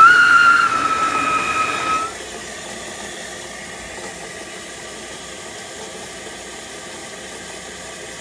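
Saniflo Saniswift grey-water pump giving a high-pitched squeal for about the first two seconds, a steady tone that sags slightly in pitch, then cuts off, leaving a steady low hiss.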